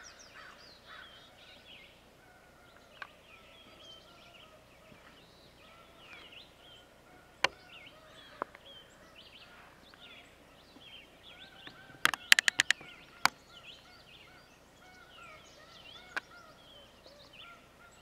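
Small birds chirping and singing in the surrounding trees, many short calls throughout. Several sharp clicks cut in, the loudest a quick run of about eight clicks a little past the middle.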